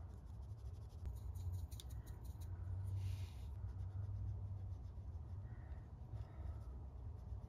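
Fine paintbrush drawing paint along watercolour paper in short strokes: a faint, soft scratching, slightly stronger about three seconds in, over a low steady hum.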